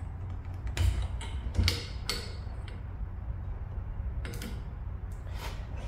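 A handful of light, irregular clicks and taps of plastic foosball parts (a goalie figure and white stoppers) being fitted and slid on a steel player rod, over a low steady hum.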